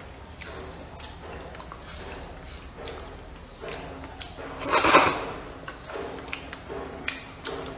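A person slurping hot and sour glass noodles with soft chewing and mouth clicks; one loud, long slurp about five seconds in.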